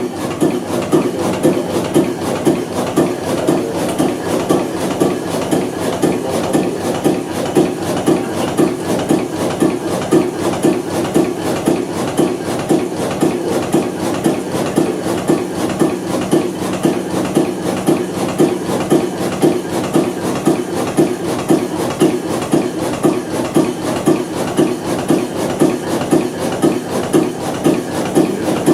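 Herforder Diesel DNS, a large horizontal single-cylinder stationary diesel engine, running at low speed with a steady, even beat of under two strokes a second.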